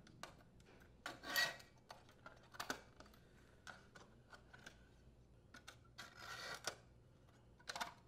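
Metal support brackets being worked off one oven control panel and onto another by hand: faint scattered clicks and short scrapes of the bracket against the panel, with longer scrapes about a second in and again around six seconds in.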